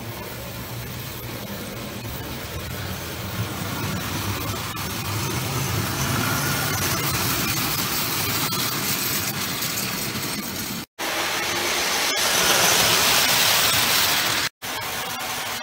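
1935 Lionel Red Comet tinplate locomotive and passenger cars running on three-rail track, its freshly cleaned and rebuilt motor driving the train steadily with the wheels rolling over the rails. The running noise grows louder as the train comes close and is broken by two brief drop-outs to silence near the end.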